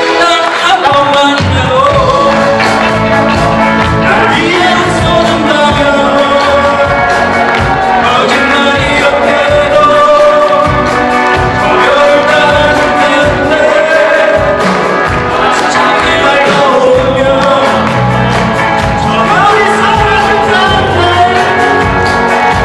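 A live rock band playing loudly: electric guitars and keyboard over bass and a steady drum beat, with singing.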